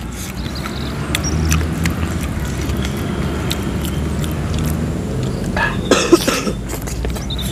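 Eating sounds: a fork clicking and a mouthful of meatball taken and chewed, loudest about six seconds in, over a steady low rumble.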